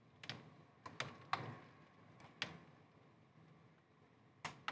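Raindrops tapping on a window or its ledge: a handful of sharp, irregular taps over a faint steady hiss, the loudest a little over a second in.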